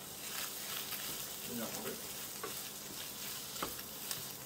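Flaked salmon sizzling as it fries in a non-stick pan, uncovered, with a wooden spatula stirring and scraping it now and then; it is being fried until crisp.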